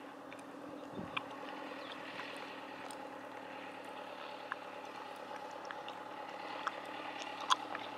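Steady low droning hum like a distant motor engine, with scattered short clicks and one sharper tick near the end.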